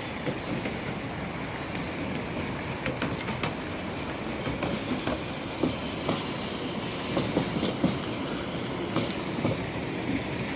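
Tram running on its rails: a steady rumble with repeated clacks and knocks from the wheels, and a faint high wheel squeal.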